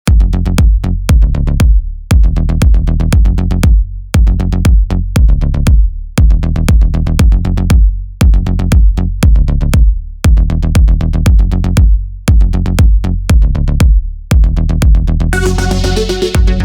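Electronic background music with a drum-machine beat and heavy bass, repeating in two-second phrases; a fuller, brighter layer comes in near the end.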